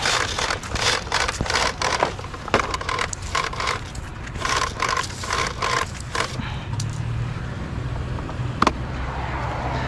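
Scrap items being handled and dragged: irregular scraping and rattling clatter for about six seconds, then a steady low hum with a single sharp click near the end.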